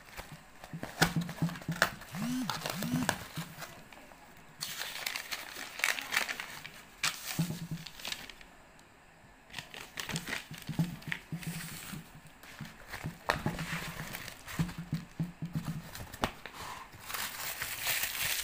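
Paper packaging crinkling and rustling as a parcel is unwrapped by hand, in irregular bursts with sharp crackles and a couple of short pauses.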